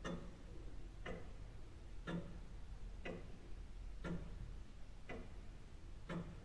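A clock ticking steadily, about one tick a second.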